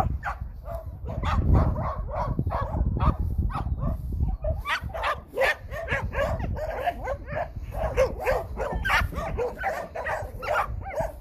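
Several dogs barking and yipping at once, short barks overlapping in a quick, continuous chorus.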